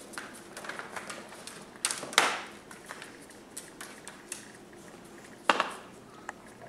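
English bulldog puppies' claws clicking and scrabbling on a tile floor as they play. Two louder brief scrapes or knocks come about two seconds in and again near the end.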